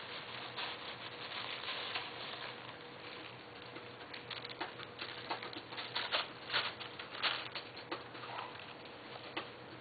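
Tissue paper crinkling and rustling as kittens paw and burrow in it: a dense rustle for the first couple of seconds, then scattered sharp crackles.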